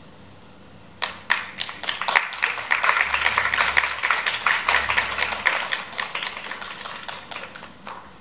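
A brief hush, then audience applause breaks out suddenly about a second in. The dense clapping thins out near the end.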